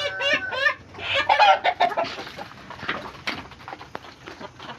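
Free-range chickens clucking and squawking: a loud cluster of calls in the first two seconds, then scattered shorter clucks.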